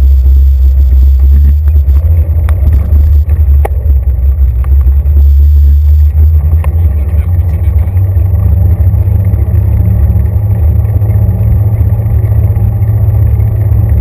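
Bicycle rolling noise, the tyres on the road and frame vibration, carried strongly through a handlebar-mounted action camera as a loud, steady low rumble. A few sharp clicks or knocks come in the first four seconds.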